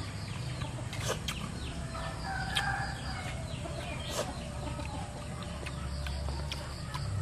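Domestic chickens clucking, with a rooster crowing once about a second in.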